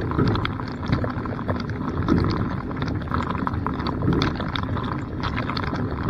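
Dishwasher in its wash cycle, heard from inside the tub: water spray splashing and pattering on the dishes and racks, with a steady low rumble underneath. The spray swells about once a second.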